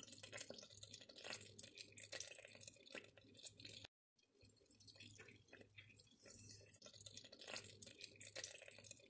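Near silence: faint room tone with a low hum and scattered faint small clicks, dropping out to dead silence for a moment about four seconds in.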